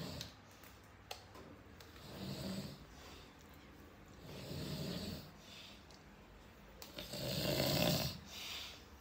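A person snoring in deep sleep, a snore roughly every two and a half seconds, the one near the end the loudest.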